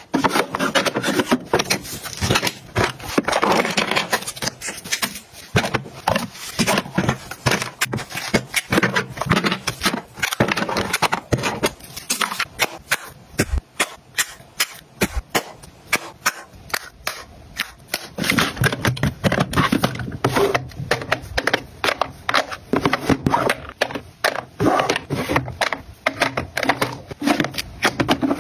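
Plastic makeup cases and compacts being handled: a dense run of small clicks, taps and scrapes as lids are opened and shut and palettes are set into clear acrylic drawers.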